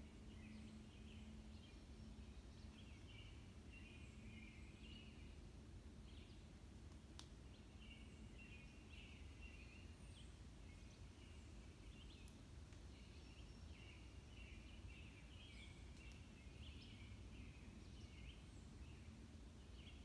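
Faint woodland birds chirping and twittering without pause, several at once, with an occasional short high whistle that drops in pitch, over a low steady rumble.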